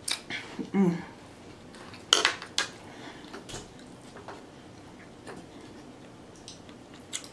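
Metal cutlery clinking against a china plate: a few sharp clicks, the loudest about two seconds in. A short hum of the voice comes about a second in.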